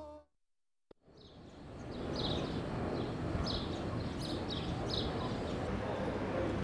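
Piano music cuts off at the start, then after a moment of silence a steady outdoor city hum fades in, with birds chirping in short, scattered calls over it.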